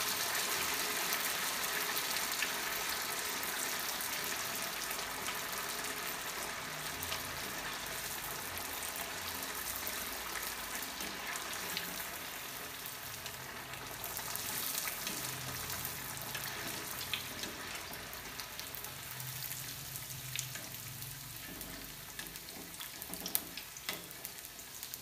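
A vermicelli-coated potato nest deep-frying in hot oil in a steel kadhai, freshly lowered in: a steady sizzle that slowly dies down, with a few light clicks.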